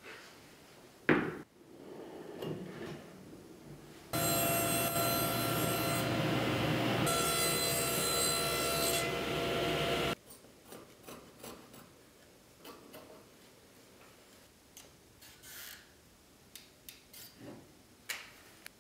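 A sharp knock about a second in, then a table saw running steadily for about six seconds, cutting thin plywood panels, and stopping abruptly. After it come scattered light taps and rubbing sounds.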